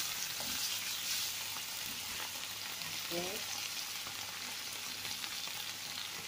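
Chicken and vegetables simmering in sauce in a pan, with a steady sizzling hiss and fine crackling bubbles.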